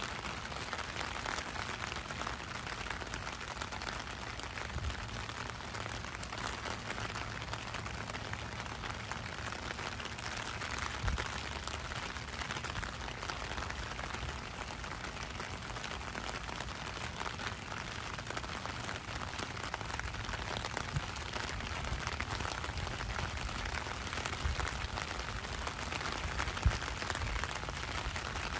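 Steady rain falling on a wet street and pavement, a constant even hiss, with a few brief low thumps, the sharpest one near the end.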